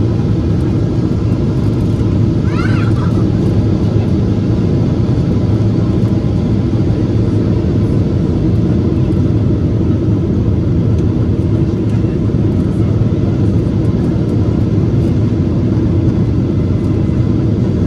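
Steady rumble of a Boeing 777 airliner in flight, its engines and airflow heard from inside the cabin. A brief rising-and-falling higher sound rises over it about two and a half seconds in.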